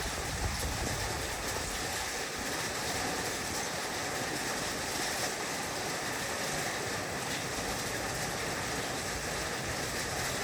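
Heavy rain falling on a roof, a steady even hiss.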